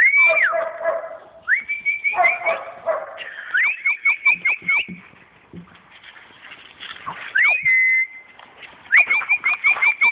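Person whistling to call spaniel puppies: rising whistles, each followed by a quick run of short repeated notes. Puppy whimpers and yips mix in.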